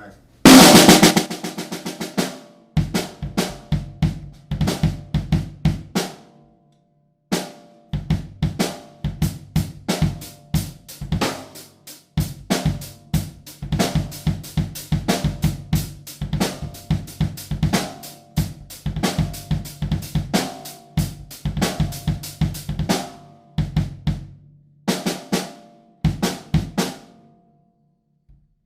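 A cheap drum kit played in beats and fills, the metal snare drum struck with its snare wires taken off, alongside bass drum hits. The playing opens with a loud hit, pauses briefly twice, and stops shortly before the end.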